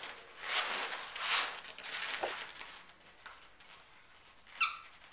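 Marker pen drawing on an inflated latex balloon: a few short scratchy strokes in the first two seconds, fainter ones after, then a brief rubbery squeak of the balloon near the end.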